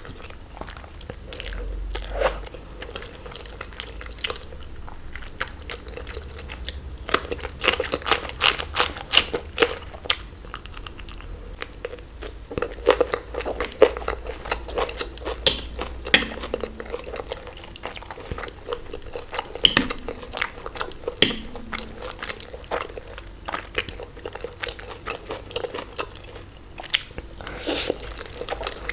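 Close-miked mouth sounds of eating: chewing and biting, with many short sharp clicks in clusters.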